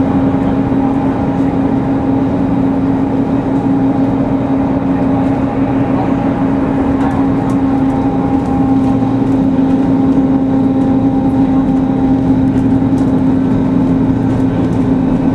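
Mercedes-Benz OC500LE bus under way, heard from inside the passenger cabin: its engine and drivetrain run with a steady hum and a constant whine, growing slightly louder about nine seconds in.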